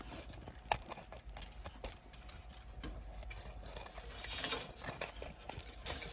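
Irregular clicks, ticks and rustling from a phone being handled and turned in the hand, with a longer rustle about four seconds in, over a low steady hum.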